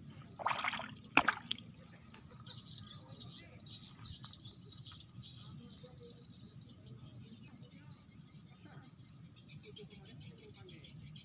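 Insects chirping in a dense, fast, high-pitched chorus. Near the start there is a short rustle and a single sharp click.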